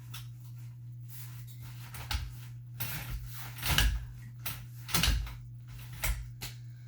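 Playpen frame being handled and unfolded: a series of clunks and clicks from its plastic-and-metal parts, about half a dozen knocks, the loudest near the middle. A steady low hum runs underneath.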